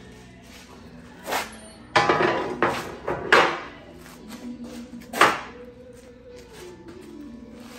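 A large steel plate is set down and shifted on a steel truck frame rail, giving a series of sharp metal clanks and scrapes with a ringing tail. The clank about five seconds in is the loudest.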